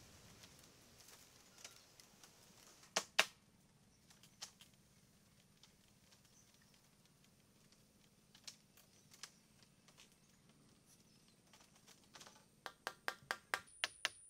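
Sharp taps and knocks: a loud double knock about three seconds in, a few lighter ones after it, then a quick run of about ten taps near the end.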